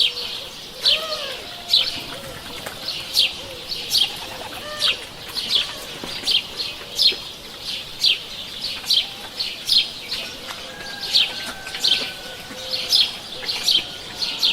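Birds chirping in a morning village chorus: short, high chirps repeat about twice a second, with a few lower, arched calls mixed in and a faint drawn-out whistle in the second half.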